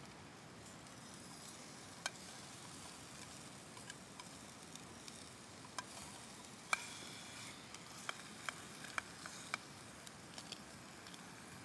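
Steak and red onion frying in a pan, a steady faint sizzle with sharp spits and pops scattered through, most of them in the second half.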